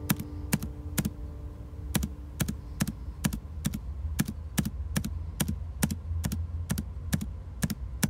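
Footstep sound effect for the walking minifigure: hard, clicky steps at an even pace of about two a second, over a low rumble.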